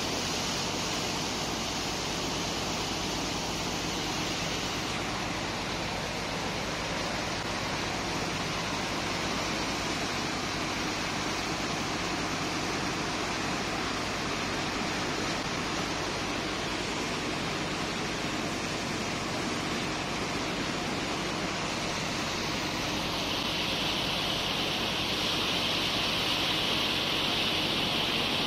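Steady rush of water: a high-pressure hose jet blasting wet sand loose while slurry gushes and splashes from a pipe, over a low steady machine hum from the sand pumping. The hiss turns brighter about three-quarters of the way through.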